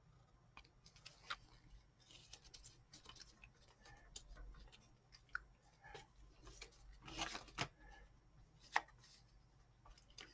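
Faint handling noise: small clicks and soft rustles of objects being picked up and set down, with a few sharper clicks late on.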